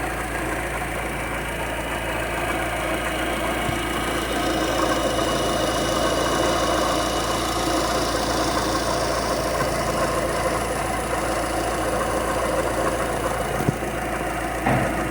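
Fiat Uno engine idling steadily with a growl from the water pump, which the mechanic blames as faulty. Two brief knocks near the end.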